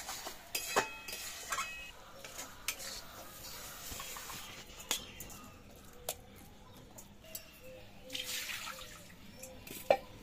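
Metal spatula scraping and clinking against a metal wok and a steel plate as a cooked vegetable curry is served out, with a sharp clink near the end.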